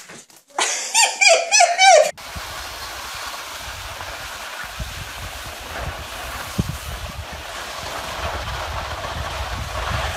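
Wind buffeting the microphone: a steady rushing noise with low rumbling. Before it, about two seconds of high, wavering cries that stop abruptly.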